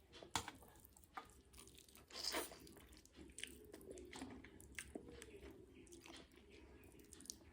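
Soft, close-miked chewing of food, with scattered sharp crunches and clicks. The loudest is a short noisy burst about two seconds in.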